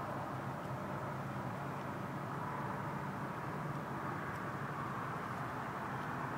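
Steady hum and hiss of distant road traffic, unchanging throughout.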